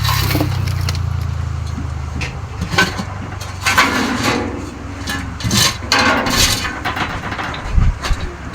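A low, steady engine hum that fades out about two seconds in, followed by irregular scrapes and knocks.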